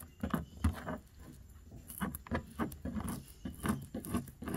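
Irregular short scrapes, rubs and light knocks of hands and a small blade wiping and scraping excess silicone sealant off the plastic kayak hull around the hatch rim.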